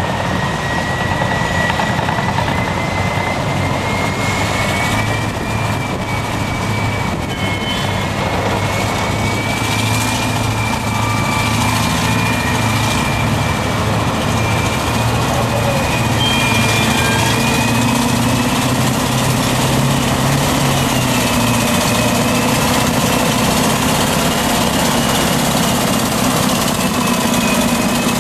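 Caterpillar 631E wheel tractor scraper loading its bowl while a Caterpillar D10N dozer pushes it from behind: heavy diesel engines running hard under load. A high whine wavers slowly in pitch over the engine noise.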